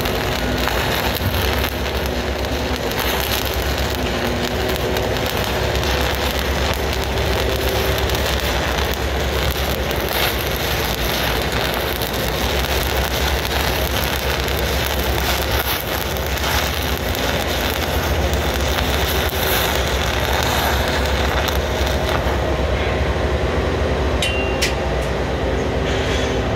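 Stick welding arc crackling and sizzling steadily as a rod burns along galvanized structural steel, cutting out a little before the end. A steady low hum runs underneath.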